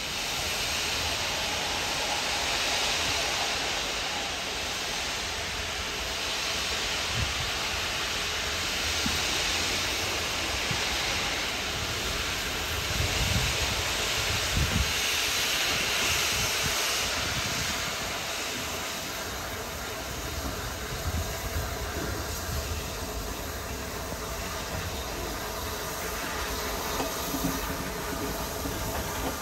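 Rebuilt Bulleid Merchant Navy class steam locomotive 35028 'Clan Line' moving off slowly with steam hissing from its open cylinder drain cocks, a steady hiss that eases after about two-thirds of the way through, with a few low thumps around the middle.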